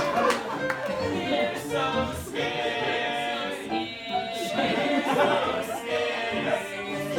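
Several voices singing together on stage in held, changing notes, as in a song from a live musical.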